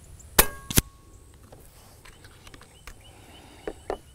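Daystate Pulsar .25 pre-charged air rifle being fired: a sharp report with a brief metallic ring, followed less than half a second later by a second sharp crack. Two fainter clicks come near the end.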